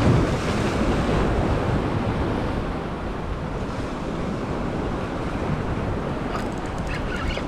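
Surf washing against a rock jetty, a steady rush of waves, with wind buffeting the microphone.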